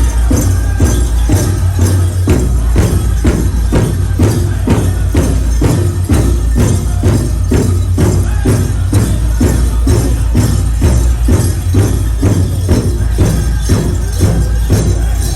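Powwow music: a drum beaten in a steady beat of about three strokes a second, with a jingling shimmer over it.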